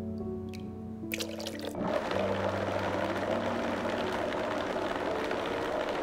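A few clicks, then a high-speed blender starts about two seconds in and runs steadily, blending soaked almonds with water into almond milk.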